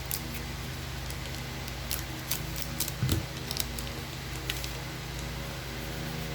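Trading cards being handled and flipped through, a scatter of light clicks and card-stock snaps with one dull thump about three seconds in, over a steady air-conditioner hum.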